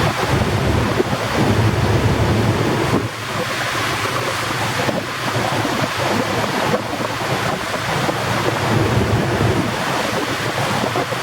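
Rushing water and wind buffeting the microphone as a Kvaerner Fjellstrand Flying Cat 40 catamaran fast ferry runs at about 30 knots, with a steady low rumble underneath.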